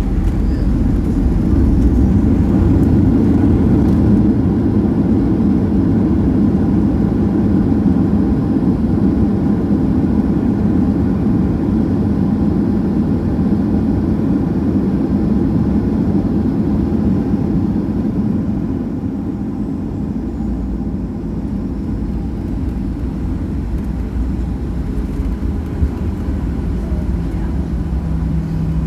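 Cabin noise of a Boeing 737-900 rolling on the ground after landing: a loud, steady rumble of its CFM56 engines and wheels, loudest in the first several seconds and gradually quieter after that.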